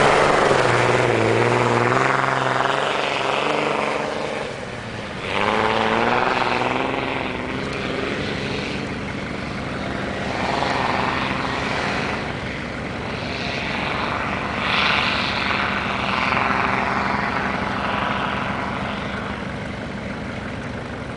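Dodge Ram 3500 pickup's engine revving hard in repeated surges as it climbs through deep snow on 54-inch tyres. It is loudest at the start, close by, and grows fainter as the truck pulls away up the hill.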